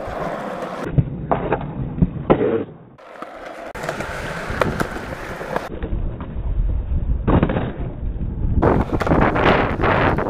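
Skateboard wheels rolling with a steady rumble on smooth concrete, broken several times by sharp clacks of the board striking the ground as the tail is popped and the board lands from frontside 180 attempts.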